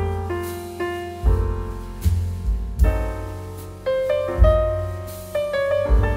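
Background piano music: notes and chords that are struck and then fade, over a low bass note struck about every second and a half.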